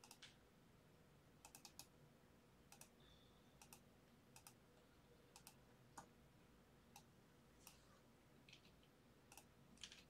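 Faint scattered clicks of a computer keyboard and mouse, some in quick runs of two or three.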